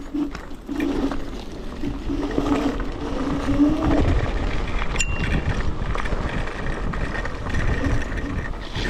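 Electric scooter riding up a rough track: wind and tyre rumble, with the hub motor's whine rising as it accelerates a few seconds in. A short sharp click about halfway through.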